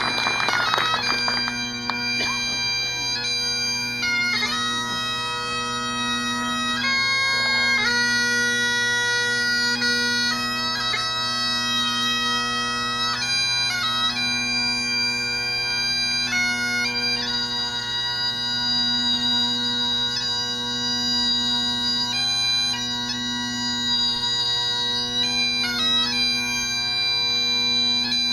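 Bagpipes playing a slow tune of long held notes over their steady drones, after a brief rush of noise dies away in the first second.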